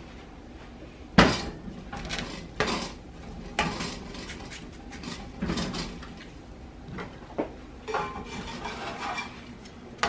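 Clatter and knocks of a comal griddle shifting on a gas stove's grate and of a spatula against it as gorditas are turned. A sharp clank about a second in is the loudest, followed by a few more knocks and some lighter clinking near the end.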